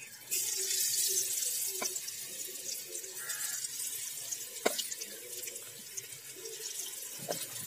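Battered potato pakoras sizzling as they go into hot ghee in an aluminium karahi. The sizzle starts sharply just after the start and slowly eases off, with a few light clicks.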